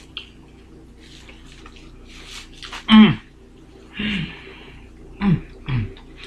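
Eating sounds: a mouthful of burger being chewed, with several short hummed "mm" sounds that fall in pitch, the loudest about three seconds in, and a breathy exhale about four seconds in.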